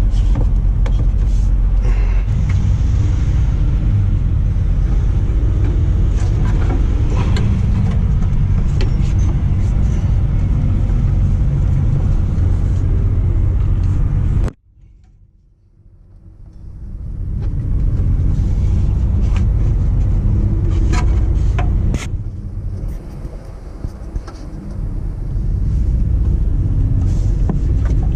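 Steady low rumble of an idling vehicle engine nearby, with scattered light clicks and knocks. About halfway through the rumble cuts off suddenly, then swells back up over a few seconds.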